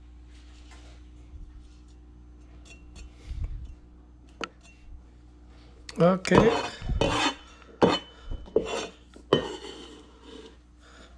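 Cleaver blade cutting pineapple on a plastic cutting board. A few faint cuts come first, then a cluster of sharp knocks and scrapes from about six seconds in as the blade strikes and slides across the board.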